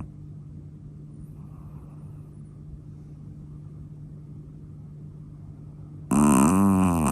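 A sleeping chihuahua snoring: after several seconds of only a low steady hum, a loud, pitched, wavering snore starts about six seconds in.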